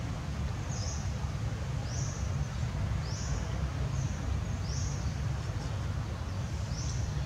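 A short, high-pitched animal chirp repeating about once a second, over a steady low rumble.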